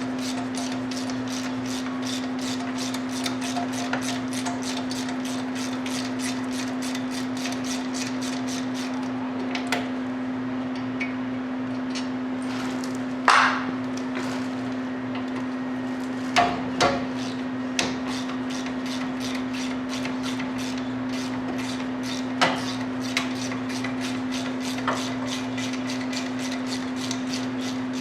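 A ratchet wrench clicking steadily, about two to three clicks a second, as the hub assembly bolts are backed out, with a pause in the middle. A few louder metal knocks, and a steady low hum under it all.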